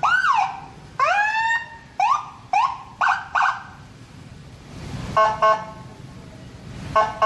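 Whelen ULF44 electronic vehicle siren being blipped: about six short rising whoop chirps in quick succession, then two pairs of short flat horn-tone blasts, one pair about five seconds in and one near the end.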